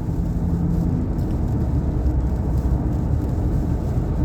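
Steady road and engine noise inside a Nissan Pathfinder cruising at highway speed, a dense low rumble.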